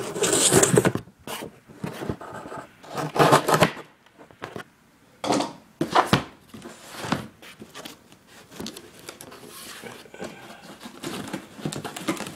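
Cardboard shipping box being cut and torn open with a knife: irregular bursts of slicing and tearing with sharp knocks as the box is handled.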